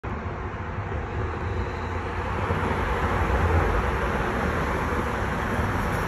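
Street traffic noise: a car driving past with a low rumble of engine and tyres, growing a little louder over the first few seconds.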